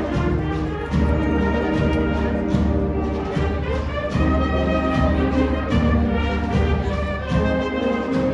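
Spanish processional band (agrupación musical) playing a march: brass holding sustained melody notes over steady drum beats.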